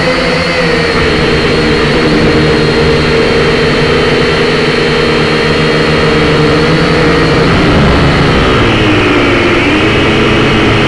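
Syma X5C quadcopter's four small brushed motors and propellers whining steadily, heard up close from the drone's own onboard camera. About eight seconds in, the pitch dips and climbs back as the throttle changes.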